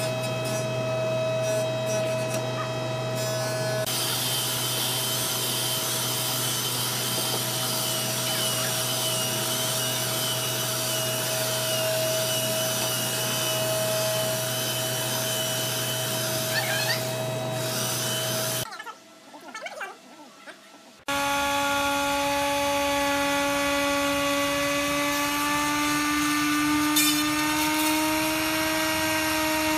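Handheld electric belt sander running steadily on hardwood. After a brief quieter gap, about two-thirds of the way in, a handheld electric router runs, its pitch creeping slightly upward.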